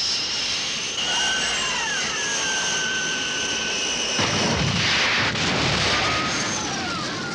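Anime sound effect: a steady jet-like roar with a high whine running through it and a few short falling whistles. The roar changes character about four seconds in and cuts off abruptly at the end.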